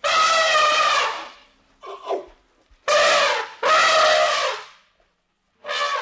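African elephant trumpeting in a series of loud blasts: about four of around a second each, with a couple of shorter calls between.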